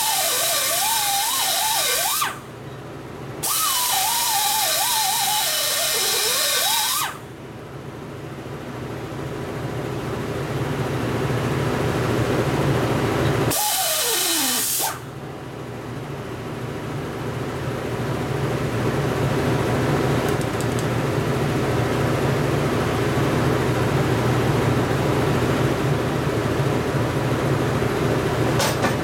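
High-speed rotary die grinder cutting into a cracked aluminium Harley-Davidson Knucklehead engine case to open up the crack for welding, in three bursts, its whine rising and dipping with the load. Between the bursts a steady low machine hum grows louder.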